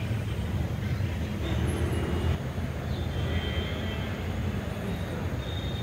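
Steady low rumble of outdoor background noise, with a few faint high chirps from about three seconds in.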